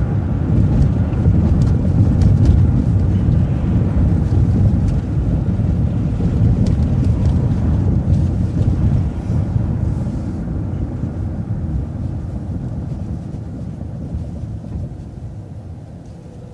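Low rumble of a city transit bus's engine and tyres while driving, growing gradually quieter over the last several seconds.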